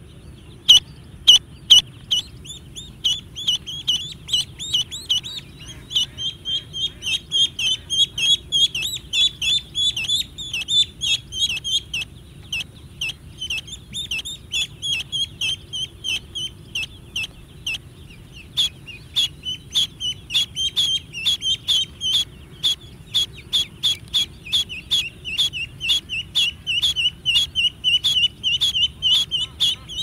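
A flock of ducklings peeping: short high peeps, several a second, overlapping one another throughout, over a steady low background hum.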